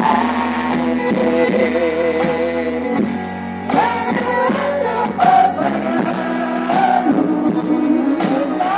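A woman singing through a microphone and PA system over amplified music accompaniment, her voice holding and bending notes.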